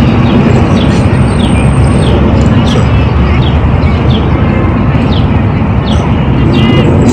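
Birds chirping in short notes that slide down in pitch, about twice a second, over a loud, steady low rumble.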